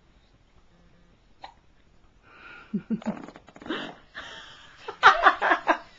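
Hiccups: after a quiet start, short catching hiccup sounds begin about halfway in, and a run of louder, quick vocal sounds follows near the end.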